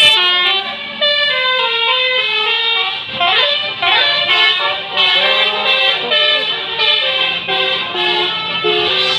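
Basuri telolet multi-tone bus horn playing a tune in quick stepped notes, with a bus engine running underneath.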